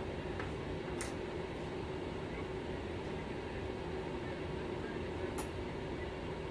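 Steady background hum and hiss with a faint steady tone, broken by two short clicks, one about a second in and one near the end.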